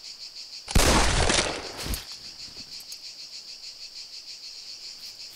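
A single loud gunshot about a second in, its echo dying away over the next second, over a steady chirring chorus of crickets.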